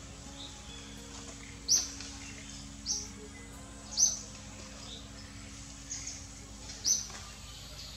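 A bird repeating a short, sharp, high chirp that drops in pitch, about once a second, over a faint steady low hum.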